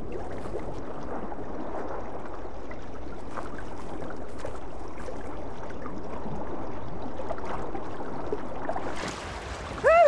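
Steady rushing of water heard underwater in an ocean swell. It drops away about nine seconds in.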